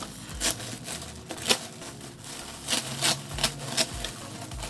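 Package being opened by hand: an irregular run of sharp clicks and crinkling rustles, with one sharp snap about a second and a half in.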